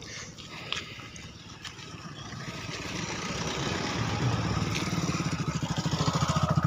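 Motorcycle engines running close by, with an even pulsing beat, growing steadily louder as the bikes approach.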